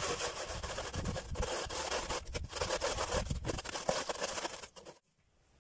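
Onion rubbed up and down the fine side of a metal box grater, a rasping scrape about twice a stroke-pair per second; it stops abruptly shortly before the end.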